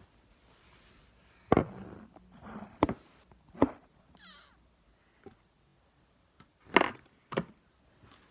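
A series of about five sharp knocks and thuds, as of objects being set down or handled, with a short squeak about four seconds in.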